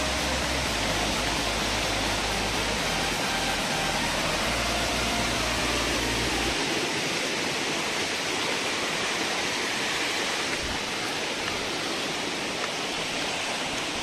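Water of a small rocky waterfall rushing and splashing down over boulders, a steady noisy rush. A low rumble underneath stops about halfway through.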